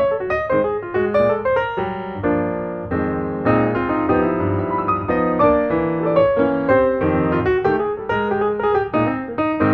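Background piano music, a steady run of quick notes.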